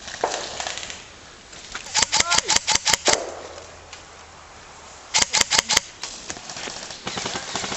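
Airsoft electric gun firing two short rapid bursts: about eight shots about two seconds in, then about five more about five seconds in.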